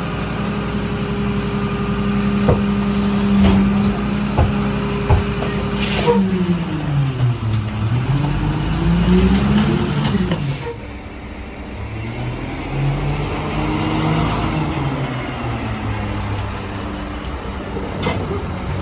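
Mack LR McNeilus rear-loader garbage truck's engine running, held steady at raised speed, then dropping, rising and dropping again before settling lower. A short hiss of air about six seconds in, and a few sharp clanks.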